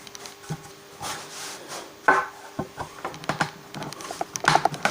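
Irregular light wooden knocks, clicks and short scrapes as a guitar's neck pocket is worked and fitted by hand, wood against wood and tool.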